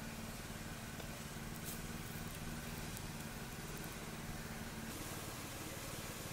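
A steady low hum with an even hiss, from a small motor or appliance running in the background, with a few faint ticks.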